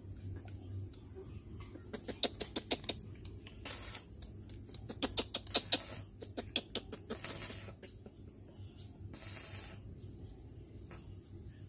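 Plastic baby bottle of milk being rolled and shaken between a person's palms: quick runs of clicks and taps and short bursts of rubbing hiss.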